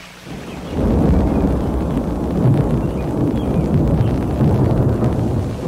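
Rolling thunder: a deep rumble that swells in under a second in, stays heavy and eases off near the end.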